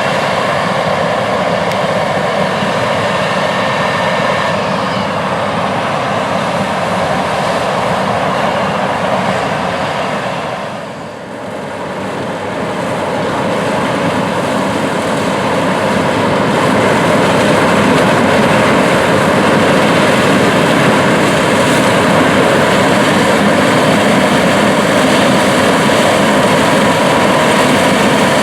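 John Deere S690 combine running steadily while harvesting corn: a continuous drone of its engine and threshing machinery. The sound dips briefly about eleven seconds in, then comes back louder and stays steady.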